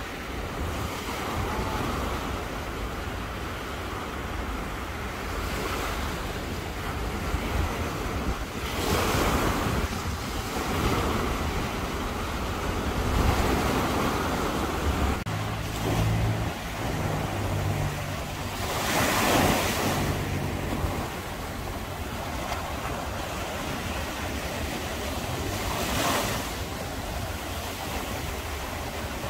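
Sea waves breaking on a beach, the surf swelling louder every few seconds, with wind rumbling on the microphone.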